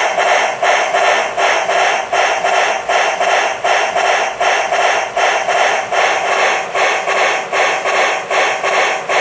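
Model steam locomotive's onboard sound system playing steam chuffs synchronized to the turning drive wheels, a steady even rhythm of about three chuffs a second.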